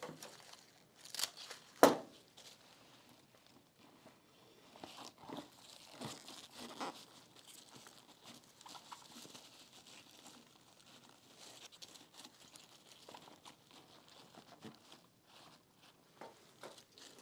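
Rustling and crinkling of roses and greenery being handled and worked into a floral arrangement, with scattered small clicks and a sharp snap about two seconds in.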